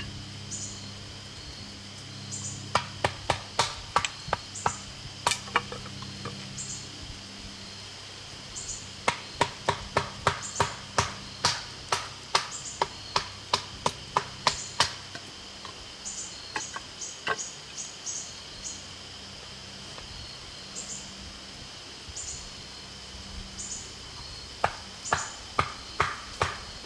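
Runs of sharp wooden knocks, about two to three a second, as a fixed-blade bushcraft knife is driven through a piece of wood to split it, with pauses between the runs. A steady high insect drone and short repeated high chirps go on throughout.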